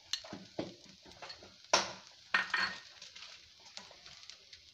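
A steel spoon scraping and knocking against a metal kadhai while mixing spice powder into mashed potato filling, a few irregular knocks with the loudest about two seconds in, then lighter scrapes.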